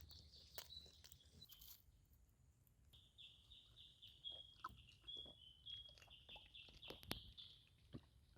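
Faint bird calling: a run of short, quickly repeated high chirps, with a few held notes among them, from about three seconds in until near the end. Scattered faint clicks and taps are heard throughout.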